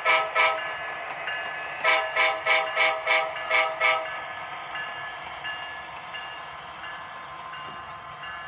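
The sound decoder of an HO-scale Norfolk Southern SD60E model diesel rings its locomotive bell in quick repeated strokes, about two a second. The ringing stops about half a second in, then starts again for about two seconds. After that only the quieter running sound of the model train continues.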